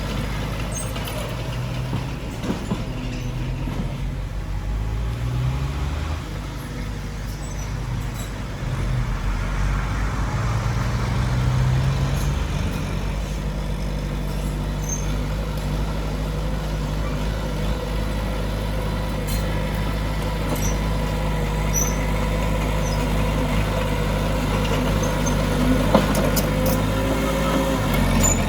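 Heavy diesel earthmoving machinery running, its engine speeding up and dropping back a few times in the first half, with a single sharp knock near the end.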